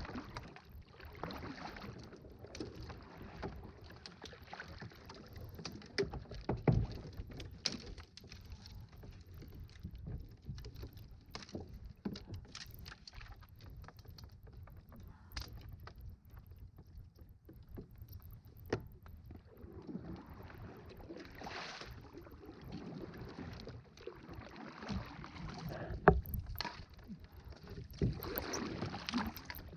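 Kayak being paddled: repeated swishing paddle strokes through the water, with a few sharp knocks along the way.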